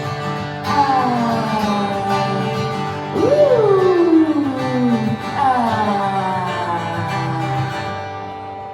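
Country song's instrumental break: guitar playing over a steady bass line, with several long notes sliding down in pitch.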